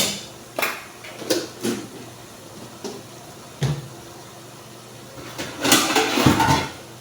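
A cooking pot and utensils being handled: a handful of separate knocks and clinks over the first four seconds, then about a second of denser scraping and sloshing a little past the five-second mark.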